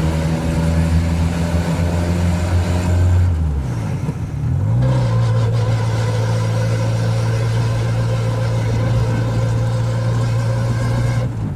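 VW Gol Turbo's engine running under way, heard from inside the car. About three and a half seconds in, the engine note dips and climbs back, then holds steady.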